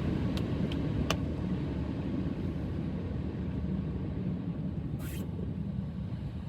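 Steady low road and engine rumble inside a moving car's cabin, with a few faint clicks in the first second and a brief swish about five seconds in.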